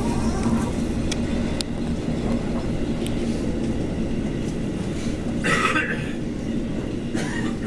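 Inside an electric commuter train running past a station platform: a steady rumble of wheels on rail with a low hum. Two short hissing bursts come about five and a half and seven seconds in.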